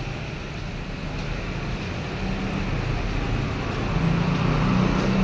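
Street traffic with a vehicle engine running close by, its low hum growing louder about four seconds in.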